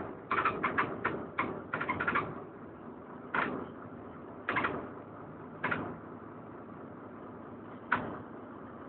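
Steady running noise inside a DAF DB250LF double-decker bus, broken by short sharp sounds: a quick run of them in the first two seconds, then single ones about a second apart, the last near the end.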